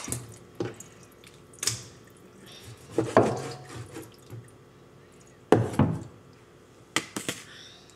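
Irregular sharp knocks of a cleaver against a plastic cutting board and wet handling of raw beef at a kitchen sink.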